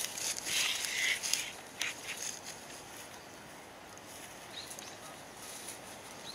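A golden retriever pushing through dry grass, dead stalks and leaf litter. Rustling and crackling with a few sharp snaps in the first two seconds, then softer rustling.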